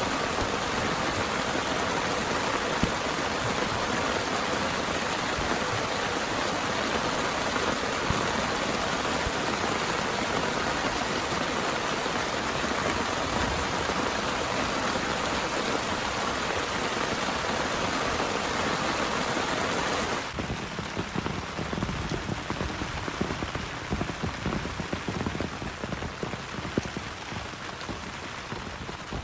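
Heavy rain pouring steadily. About twenty seconds in, the sound changes abruptly to slightly quieter rain with more distinct drops hitting a surface.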